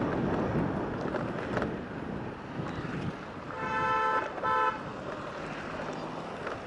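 A vehicle horn honks twice, a longer toot and then a short one, over steady traffic and wind noise on the microphone.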